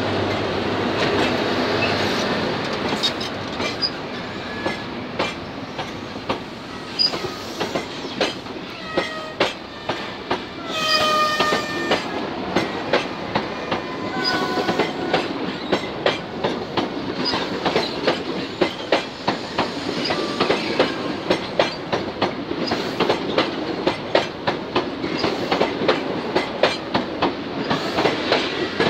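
Train of Mark 3 passenger coaches rolling past, its wheels giving a steady clickety-clack of sharp clicks over the rail joints. A few short, high squeals from the wheels come about nine to fifteen seconds in.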